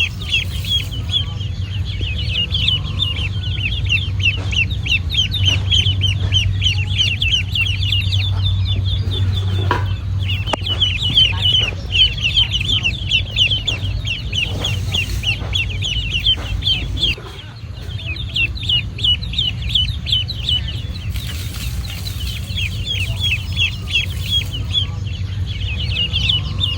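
Ducklings peeping in a rapid, continuous stream of short, high peeps, with a brief pause about ten seconds in, over a steady low hum.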